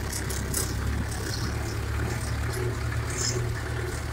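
YuMZ-6 tractor's four-cylinder diesel running steadily while the tractor drives along, heard from inside the cab, with short light rattles now and then.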